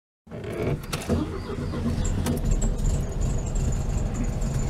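Air-cooled Volkswagen Beetle engine running steadily, heard from inside the car, with a few light clicks and rattles about a second in.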